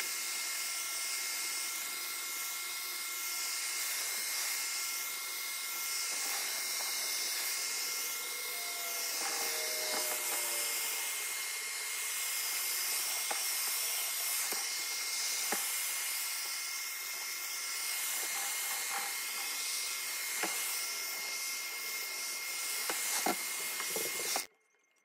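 Handheld electric heat gun running steadily: a fan whine with a hiss of hot air, playing along the edge of a headlight to soften the silicone sealant that holds the lens on. A few light knocks; the sound cuts off suddenly near the end.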